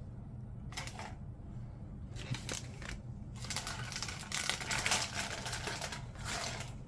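WWE NXT trading cards being handled and flipped through, sliding against each other with papery rustling and light clicks. The rustling comes in short bursts and is busiest in the second half.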